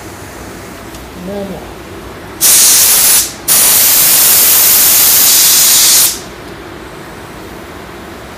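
Paint spray gun triggered, a loud steady hiss of compressed air atomising paint. It sprays in two passes: a short burst under a second long, a brief break, then a longer pass of about two and a half seconds that cuts off sharply.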